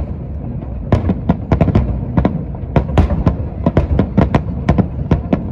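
Fireworks display: a rapid, irregular barrage of aerial shell bursts, several sharp bangs a second over a steady rumble of overlapping explosions.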